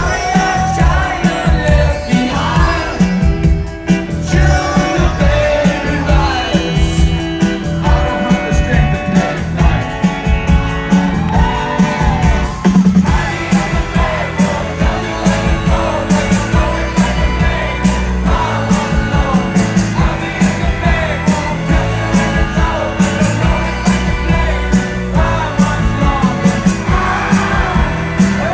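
Live rock band playing with a lead singer over a steady drum beat, loud and amplified.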